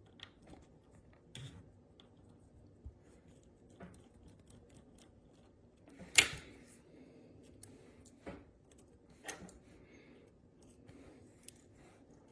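Small metal watchmaker's tools clicking and tapping against a Seiko watch movement during disassembly. A few scattered faint clicks, with the sharpest one about six seconds in.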